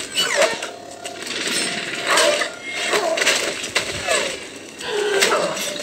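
Soundtrack of a sci-fi TV episode playing: a busy mix of clattering sound effects and short gliding squeals, with some voices.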